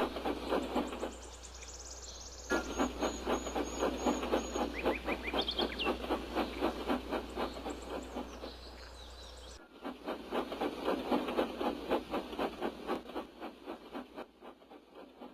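Steam locomotive chuffing in a steady rhythm of puffs. It breaks off briefly about nine and a half seconds in, then resumes and fades.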